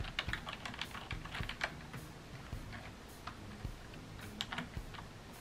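Keys of a Microsoft Wired Keyboard 600 membrane keyboard pressed in quick, irregular clusters, several at a time. The key clicks are quiet and soft, coming thickly for about the first two seconds and more sparsely after that.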